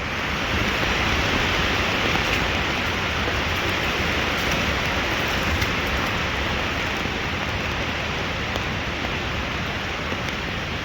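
Rain falling steadily on a hammock tarp, with a few faint drip ticks.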